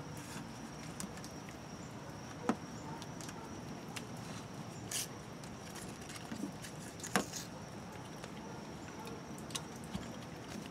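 A few sharp clicks and taps from hands and pliers working the white plastic RV city water inlet flange, the loudest about seven seconds in, over a steady background hiss with a faint high steady tone.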